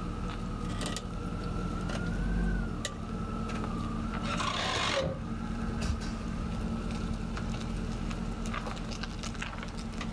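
A GMC Sierra 1500's 6.0-liter V8 running at low speed as the pickup reverses out and pulls away. A thin wavering whine sits over the engine note, and a brief rushing sound comes about four seconds in.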